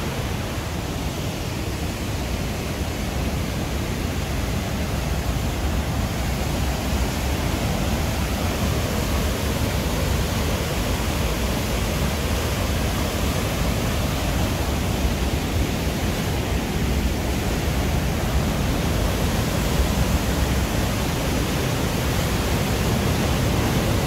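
Whitewater of the Cleddau River pouring through the Chasm's narrow carved-rock gorge: a steady, loud rush that grows a little louder over the stretch.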